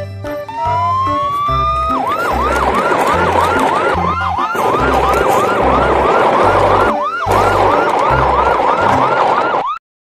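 Electronic police siren: a rising wail about half a second in, then a fast repeating yelp, over background music with a steady deep beat. It all cuts off suddenly near the end.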